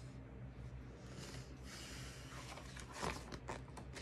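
Faint rustling and crackle of a paperback picture book's pages being handled and turned, strongest about three seconds in, over a low steady hum.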